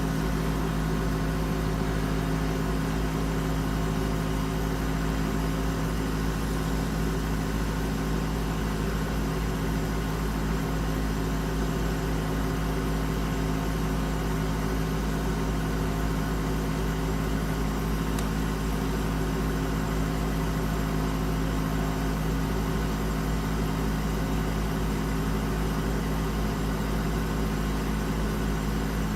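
Bedroom air conditioner running with its compressor on: a steady hum made of several low tones over an even fan noise. The owner says the unit is not cooling properly.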